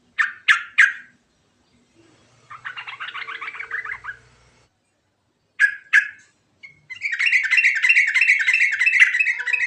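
Yellow-vented bulbul singing: three sharp calls, then a short chattering phrase, two more calls, and a long fast rolling run of repeated notes, about five a second.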